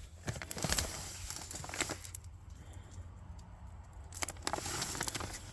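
Light handling noise of the cardboard firework cake and its packaging: scattered taps, rubs and crinkles, quieter for a couple of seconds in the middle.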